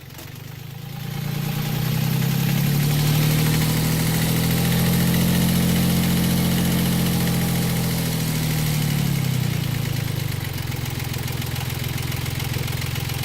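Yanmar 3GM three-cylinder marine diesel running. Its speed rises about a second in, holds, then drops back after about nine seconds to a steady idle, which has been set just under 800 rpm with the new throttle cable.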